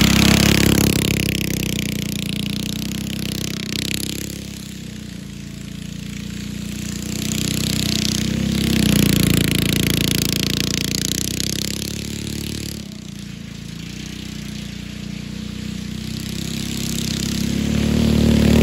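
Go-kart with a Predator 212-type single-cylinder four-stroke engine and 30 series torque converter running as it drives away and back, its engine fading with distance, swelling about halfway through as it swings by, fading again, then growing loud near the end as it comes close.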